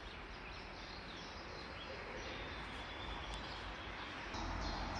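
Outdoor ambience: a steady faint hiss with a few faint bird chirps. A low rumble rises near the end.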